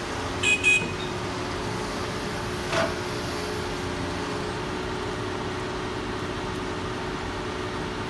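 Diesel engine of a Doosan crawler excavator running steadily at a work site. Two short beeps sound about half a second in, and a brief knock near three seconds.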